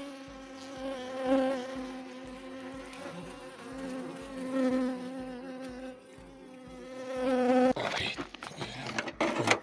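Honeybees buzzing close to the microphone as they crowd onto a protein patty on the hive's top bars: a steady hum with a slightly wavering pitch. About eight seconds in, the hum gives way to rustling and knocking handling noise.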